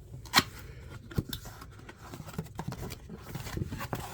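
A camcorder box being opened and its packaging handled: a sharp snap about half a second in, another knock a little later, then scattered taps and rustling.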